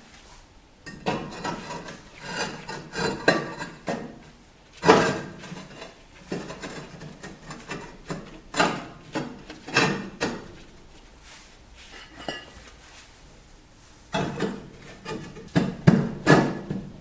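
Vermiculite lining boards being fitted into a stove-fireplace firebox: bursts of knocks and scrapes as the boards are slid and set into place, with pauses between. The loudest knock comes about five seconds in.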